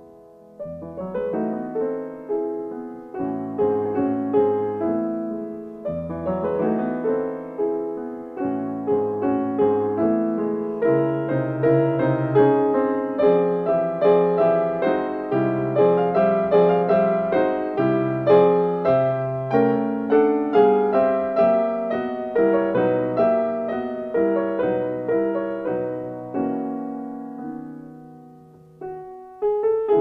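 Background solo piano music, a steady flow of notes that swells louder through the middle, fades away near the end, and then starts a new phrase.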